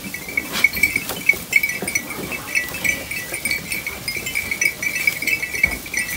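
Sheep feeding at wooden hay racks: a steady high tinkling, like small bells, goes on throughout, over scattered rustles and knocks of hay being pulled and munched.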